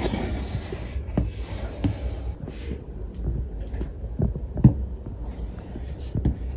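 Soft knocks and brushing from fingers touching and tapping a cardboard box, over a steady low hum, with about five irregular taps and the strongest a little past the middle.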